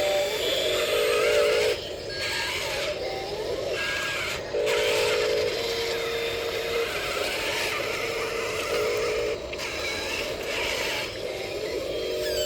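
Miniature excavator's small electric motors whining in steady tones that start and stop every second or two as it works, over a constant hiss, with several abrupt breaks.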